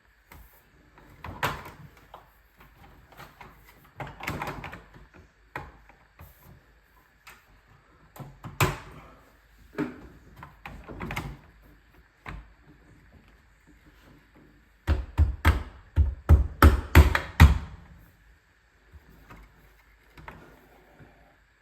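Blinds' headrail being fitted into its mounting brackets: scattered knocks and clicks, then a quick run of about eight loud thumps about fifteen seconds in. A faint steady high hum runs underneath.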